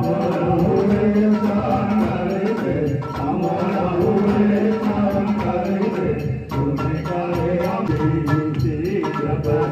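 Devotional hymn sung through PA loudspeakers, with a steady percussion beat behind the voice.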